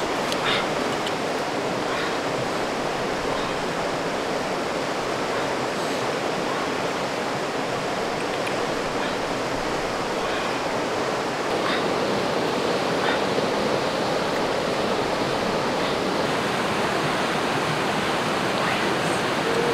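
Rushing river rapids: a steady wash of fast-flowing water, with a few faint scattered clicks.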